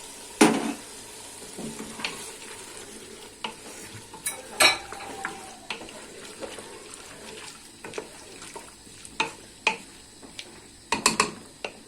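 Diced tomato and vegetables sizzling in hot oil in a pot while a spoon stirs them, knocking and scraping against the pot several times, with a cluster of clatters near the end.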